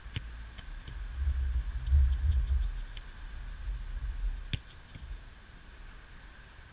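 A football struck sharply with the foot near the start and again about four and a half seconds in, with a few fainter knocks between. A loud, irregular low rumble swells up in the middle.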